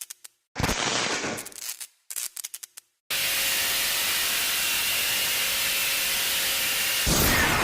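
Sound effects of a channel intro: a sharp hit with a crackling tail, a run of sputtering crackles, then a steady hiss like static for about four seconds, cut off by a louder hit with a falling sweep near the end.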